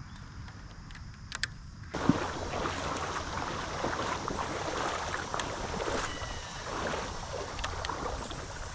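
Water splashing and sloshing in a creek, starting suddenly about two seconds in, with many small splashes and clicks.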